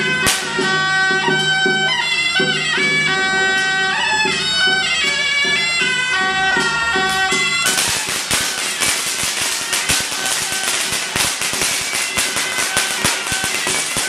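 Suona (Chinese shawm) playing a shrill, reedy melody over a steady drone, in Taiwanese Taoist ritual music. About eight seconds in, a dense, rapid crackle of sharp pops sets in and becomes the loudest sound, with the horn carrying on beneath it.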